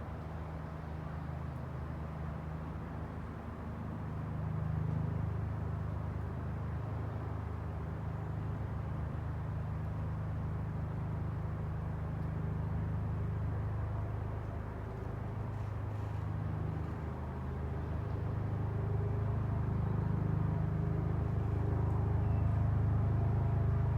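Steady low rumble of distant road traffic, swelling a little a few seconds in and again toward the end.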